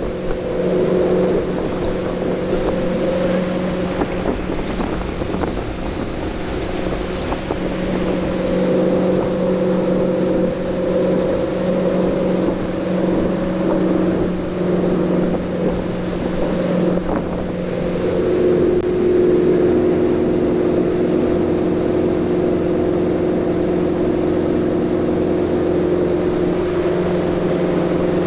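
Tow boat's engine running steadily while pulling a water skier, a constant drone whose note shifts slightly about two-thirds of the way through, with wind and the rush of the wake mixed in.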